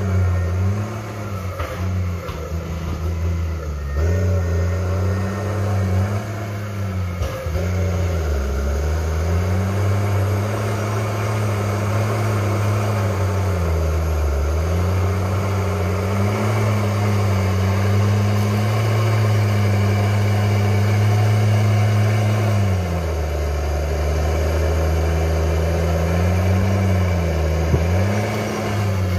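Crawler tractor's diesel engine running hard as the dozer blade pushes earth, stumps and roots. The engine note dips briefly twice and runs lower for a few seconds near the end before picking back up.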